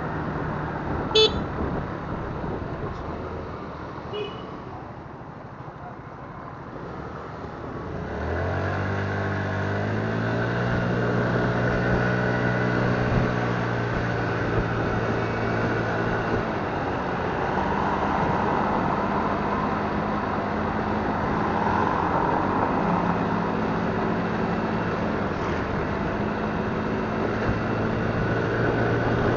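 Motorcycle engine pulling away from slow running: its note rises about eight seconds in, then holds steady while cruising, with a few shifts in pitch, over street traffic noise. A brief sharp sound, the loudest moment, comes about a second in.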